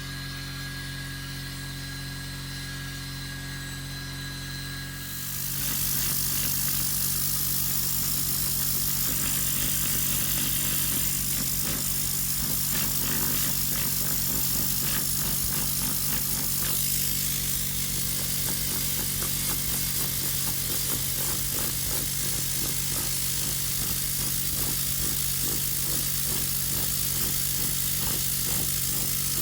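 A low steady hum, then about five seconds in a powered machine switches on and runs steadily with a loud rushing hiss and a fast, rough flutter, the sound of a detailing tool moving air.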